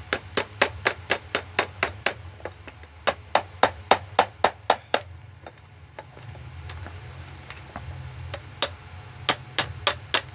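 Quick, sharp hammer taps in runs of about three to four a second with short pauses, driving the metal retaining tabs back down over a newly fitted shaft bushing in a box fan motor.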